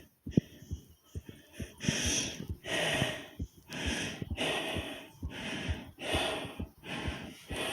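Fast, heavy human breathing, a quick run of hard breaths in and out that starts about two seconds in. Rapid soft low thumps of a racing heartbeat run underneath.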